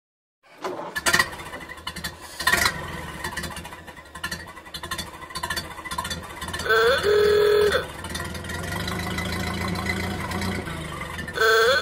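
An old car's engine running, with two sharp knocks in the first few seconds, then a horn honking twice, each honk a rising note held for about a second, the second one near the end.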